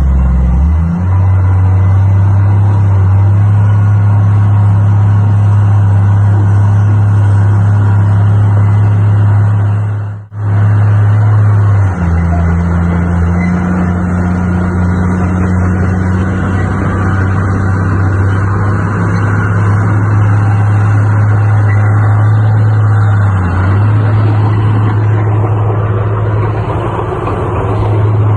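Heavy diesel engine of earthmoving machinery running hard, its engine speed stepping up and down a few times. The sound drops out for a moment about ten seconds in.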